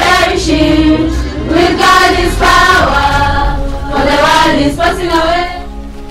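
Background song: a choir singing with musical accompaniment. The voices stop about five and a half seconds in, leaving quieter held notes.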